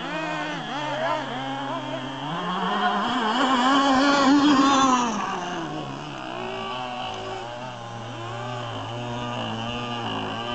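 Radio-controlled speedboat motor running at speed on the water, its pitch wavering as the throttle changes. It climbs higher and louder a few seconds in, peaks around halfway, then drops back to a lower, steadier note.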